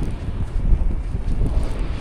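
Blizzard wind buffeting the microphone: a heavy, uneven low rumble that surges and eases.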